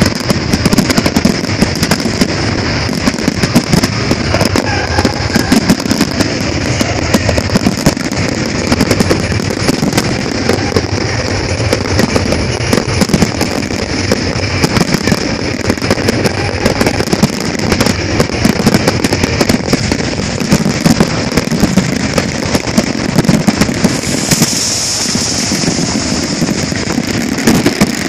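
A dense, unbroken barrage of aerial fireworks: rapid, overlapping bangs and crackle from shells bursting, with a louder hiss about twenty-four seconds in.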